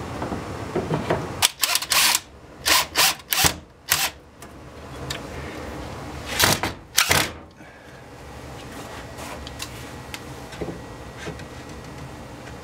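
Steel hand saws being slid into the slots of a wooden saw till and hung on its wooden turn buttons: a run of short scraping and knocking strokes in the first seven seconds or so, the blades rattling against the wood, then it goes quieter.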